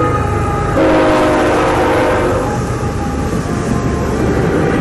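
Freight locomotive horn sounding a chord of several steady tones: one blast cutting off at the start and another from about one second to two and a half seconds in. Underneath is the steady rumble of the freight train rolling past.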